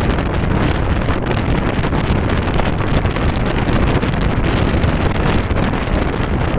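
Steady rain: a dense, even hiss with many small drop hits, over a low rumble of wind on the microphone.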